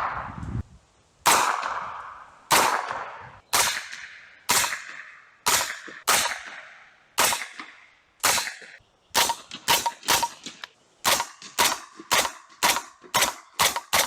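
Suppressed 9mm MP5 submachine gun shots, single shots each with a short echoing tail. They come about one a second at first, then faster, two to three a second, over the last few seconds.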